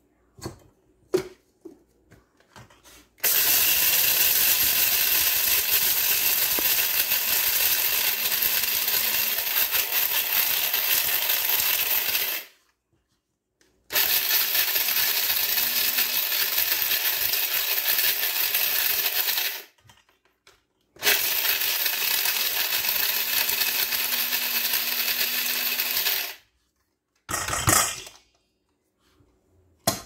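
Small electric blade coffee grinder grinding dried Glass Gem flint corn kernels into cornmeal, run in three loud bursts of about nine, six and five seconds with short pauses between. A few light clicks come before the first run, and there is a brief burst near the end.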